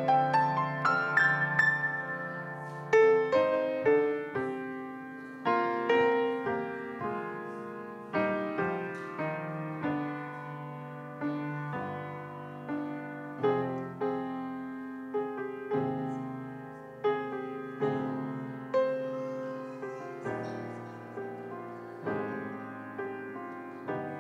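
Solo piano playing a slow piece: chords and single notes struck about once a second, each left to ring and fade, with a quicker run of notes in the first few seconds.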